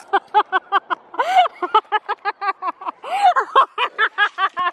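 A girl laughing hard in rapid, high-pitched bursts, about five a second, broken by two longer rising-and-falling squeals.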